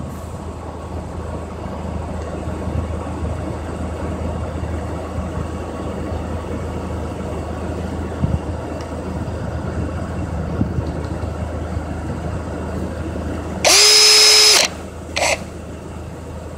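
Power drill spinning its bit with no load: the motor whines steadily for about a second near the end, then gives a short blip. Before that only a steady low hum.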